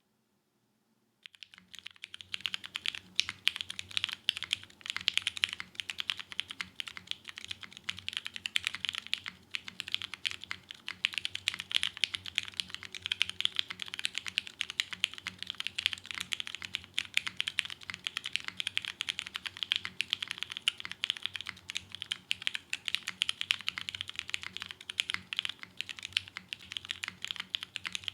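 Typing on a TGR Jane V2 mechanical keyboard with lubed vintage Cherry MX Brown tactile switches on a polypropylene full plate and GMK keycaps: a rapid, continuous stream of keystrokes with a soft, creamy sound. The typing starts about a second in.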